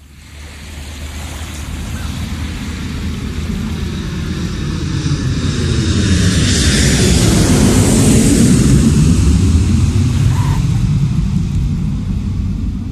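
A deep engine rumble fades in, swells to a peak about eight seconds in and slowly eases off, as a motor passes by.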